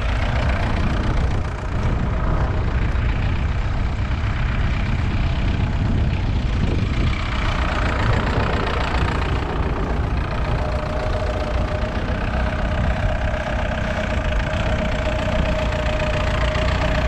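Ferguson TEF20's 2.1-litre four-cylinder diesel engine running steadily. A steady mid-pitched whine joins about ten seconds in.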